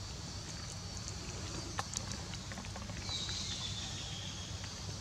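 A baby monkey biting and chewing soft fruit: a few small, sharp wet clicks over a steady low outdoor rumble, with a faint thin high tone about three seconds in.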